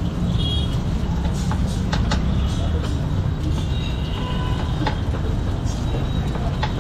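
Steady roar of a commercial gas wok burner, with a metal ladle clanking sharply against the wok a few times as food is stir-fried.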